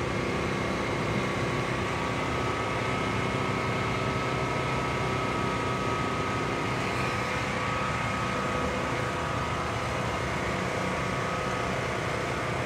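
Steady mechanical hum of a running machine, with a few thin, steady high tones over it.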